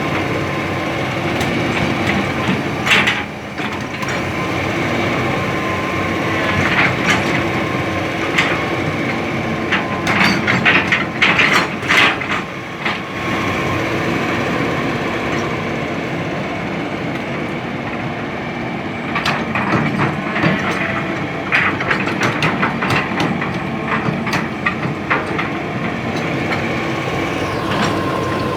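Hitachi hydraulic excavator's diesel engine running steadily under work, with bursts of metallic clanking and scraping about 3 s in, from about 10 to 13 s, and again from about 19 to 25 s.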